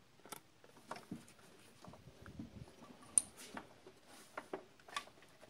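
Irregular metal clicks and knocks of a socket wrench being worked onto a 10 mm bolt deep in an engine bay, with one sharper clink about three seconds in.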